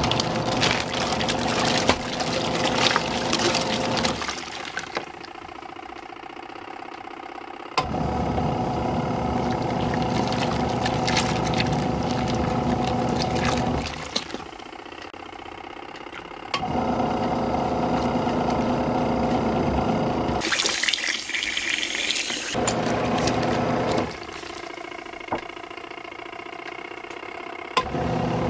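Wash motor of a portable twin-tub washing machine running its wash cycle: it runs for several seconds with a steady hum and water churning, pauses for about three seconds, then starts again, over and over. About twenty seconds in there is a brief hiss.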